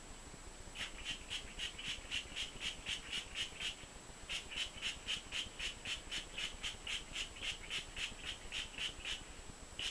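Trigger spray bottle spritzing water onto hair in quick repeated squirts, about four a second, with a short break after about four seconds.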